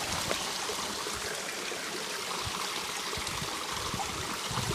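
Creek water flowing, a steady rush and trickle of the stream.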